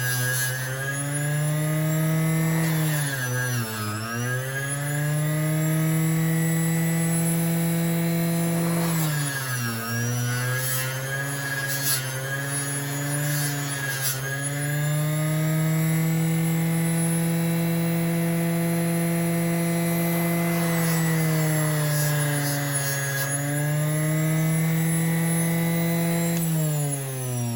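Motor-driven fiber wheel running steadily, its pitch sagging and recovering about three times as a knife blade is pressed against it for cleaning. A few sharp ticks sound in the middle, and the motor begins to wind down near the end.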